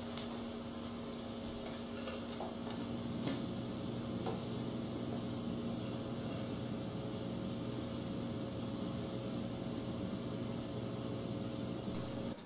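A steady low hum with a few faint taps, the taps a few seconds in.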